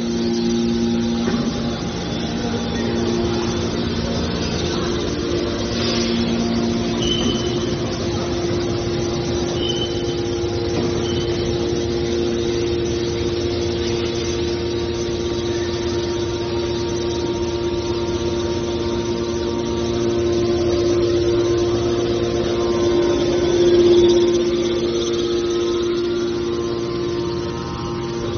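Hydraulic metal baler's motor and pump running with a steady hum, swelling briefly in loudness a few seconds before the end.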